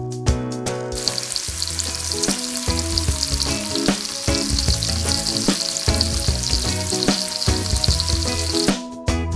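Sliced bell pepper, carrot and onion sizzling as they fry in oil in a stainless steel pan, a steady hiss full of small crackles. It starts about a second in and cuts off near the end.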